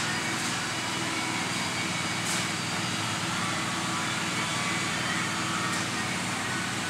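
Orbital sander running steadily on a motorhome's painted body panel: an even hiss over a low hum, with a couple of brief clicks.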